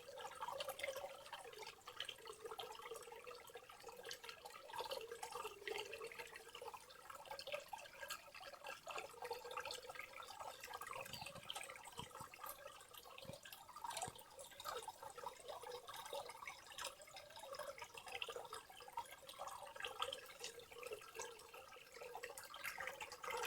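Faint rainforest ambience: dense, irregular dripping and pattering of water, with no break.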